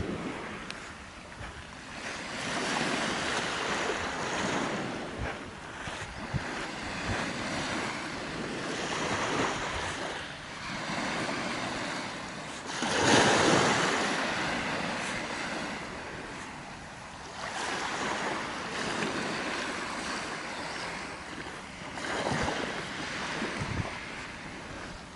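Small sea waves breaking and washing up the beach, the surf swelling and fading every few seconds, loudest about halfway through.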